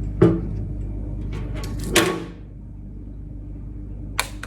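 Dyson Supersonic hair dryer blowing, its airflow a steady low rumble, with a sharp plastic click about a quarter second in and another about two seconds in. After the second click the airflow turns quieter, and a lighter click comes near the end.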